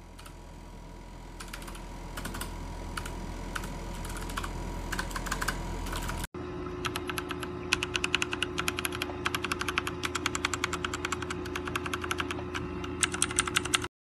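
Keystrokes on a mechanical keyboard: scattered key clicks at first, then, after a cut about six seconds in, faster and denser typing. A faint steady hum runs under the clicks.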